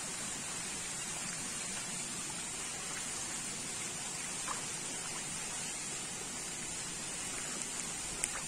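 Steady splashing of a dense school of Nile tilapia churning the water surface, with a couple of sharper small splashes about halfway through and near the end.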